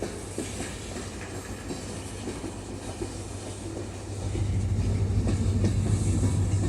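Diesel locomotive of a CSX freight train running with a steady low hum while switching cars in the yard. The engine grows noticeably louder about four seconds in.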